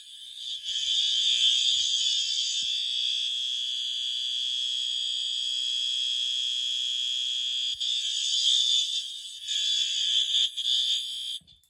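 System Sensor SpectrAlert Advance fire alarm horn sounding on continuous high volume: a loud, harsh, steady electronic tone that cuts off abruptly near the end. Measured at 100.9 decibels from ten feet away.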